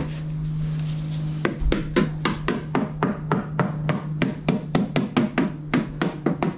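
Rapid tapping on the Nissan 300ZX's damaged rear quarter panel, about three to four knocks a second after a pause of a second and a half. The tapping checks by ear whether there is solid metal or body filler under the paint, and here it sounds like metal.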